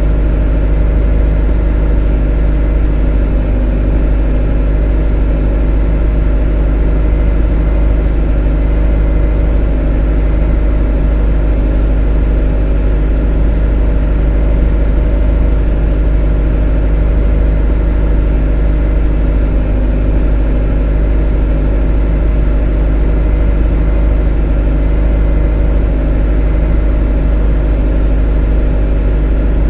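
A motor running steadily with a deep, unchanging hum and a stack of steady tones above it, with no change in speed or level.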